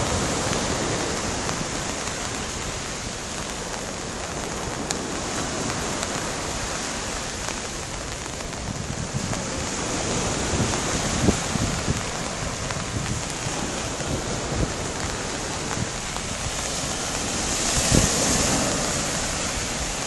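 Small waves breaking and washing up a sandy beach in a continuous surf wash, with gusts of wind knocking on the microphone. The surf swells louder near the end.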